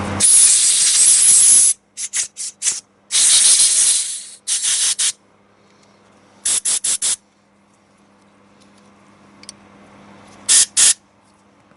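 Hissing blasts of cleaning spray on carburetor parts: a long blast, a few short puffs, another long blast, then quick short puffs in the middle and two more near the end.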